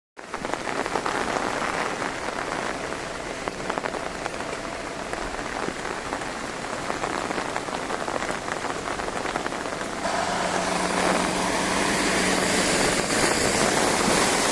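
Heavy rain pouring down and splattering on surfaces: a dense, steady hiss with fine patter. About ten seconds in it changes to a louder rushing sound with a low steady hum underneath.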